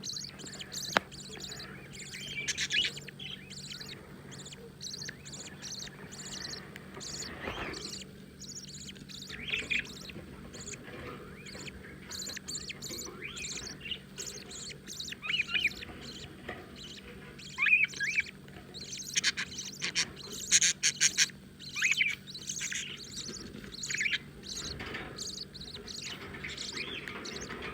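Newborn budgerigar chicks chirping: many short, high chirps at irregular intervals, growing denser and louder about two-thirds of the way through.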